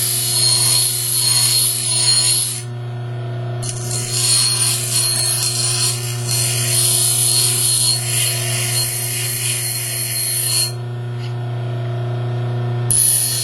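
A 6-inch bench grinder running with a steady hum while a hacksaw-blade steel pick blank is pressed to the wheel. The harsh grinding hiss lasts about two and a half seconds, returns after a short pause for about seven seconds, and comes once more briefly near the end.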